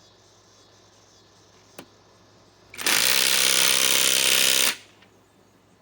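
Metabo SSW 18 LT 300BL cordless impact wrench hammering rapidly for about two seconds as it drives a lag screw, then stopping abruptly. A single short click comes about a second before it starts.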